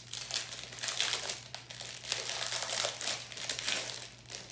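Clear plastic bag of diamond-painting drills crinkling as it is handled, in irregular rustling bursts.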